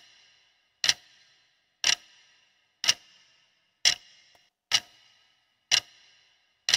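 Clock-tick countdown timer sound effect: one sharp tick each second, each with a short ringing tail.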